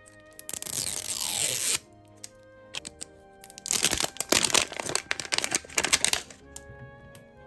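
Toy packaging being torn open and crinkled: a tear lasting about a second starting half a second in, then a longer spell of crackling and crinkling from about three and a half to six seconds. Soft background music plays underneath.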